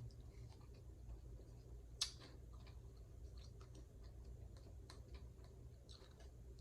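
Faint scattered clicks and ticks from someone eating, with one sharper click about two seconds in, over a low steady hum.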